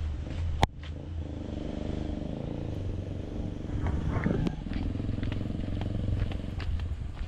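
A small engine running steadily, with one sharp click just before it starts.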